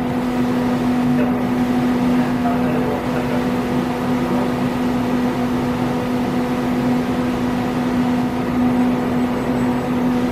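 A 5-axis CNC router running a program: a steady, even machine hum with one strong low tone that holds unchanged.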